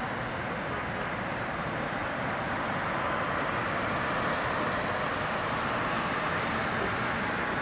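Boeing 777-200LR's GE90 turbofan engines running at low power as the airliner rolls slowly along the taxiway: a steady jet rush that grows a little louder about three seconds in.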